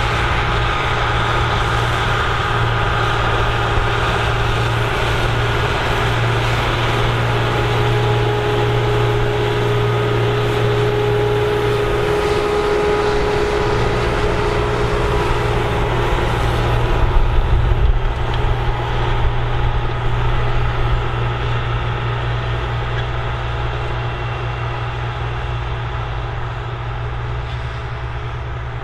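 Diesel engine of a big articulated four-wheel-drive tractor running steadily, with a deep hum and a held higher tone over part of it. It grows a little louder about two-thirds of the way in, then slowly fades toward the end.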